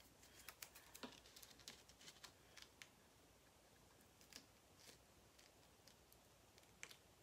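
Near silence, with a few faint, scattered small clicks from fingers pressing a strip of washi tape down along the edge of a wooden sign board.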